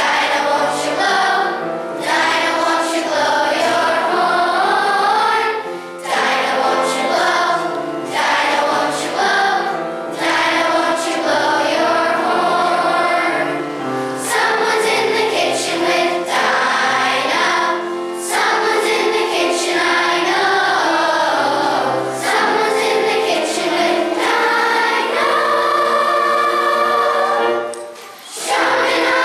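A choir of children singing a song together over instrumental accompaniment, with a brief break between phrases near the end.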